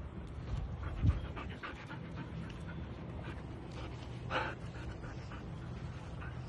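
A dog panting in quick, soft breaths, with a low bump about a second in and a short louder sound at about four and a half seconds.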